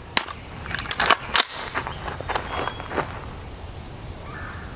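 Sharp metallic clicks and clacks of an AR-15-style rifle being handled and readied to fire. The loudest knocks come in the first second and a half, with fainter ticks after.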